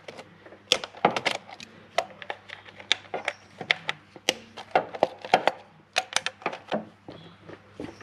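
Irregular clicks and knocks of plastic and metal, a few each second, as hands unclip and work loose the ignition coils and their connectors on a Lexus LS430 V8.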